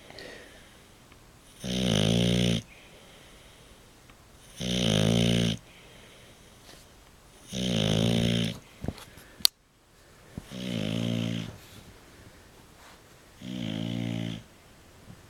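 English bulldog snoring in its sleep: five snores about three seconds apart, each about a second long. A single sharp click about halfway through.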